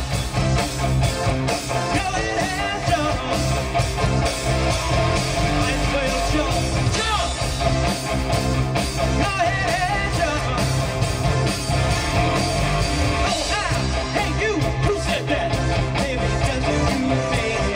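Rock music with singing over a steady beat.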